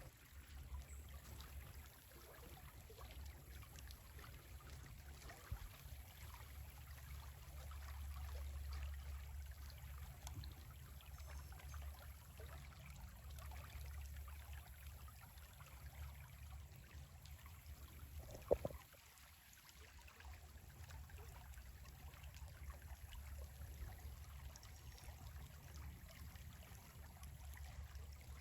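Small swamp stream trickling and flowing faintly, with a steady low rumble underneath and a single sharp knock about two-thirds of the way through.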